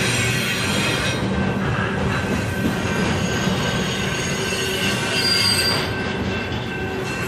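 Union Pacific freight train rolling steadily past with a continuous rumble, its steel wheels squealing thinly on the rails. A brighter, higher squeal comes about five seconds in.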